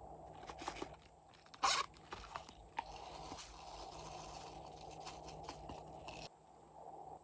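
Slime being mixed, with crunchy scraping and crackling and scattered sharp clicks; the loudest is a short crack a little under two seconds in.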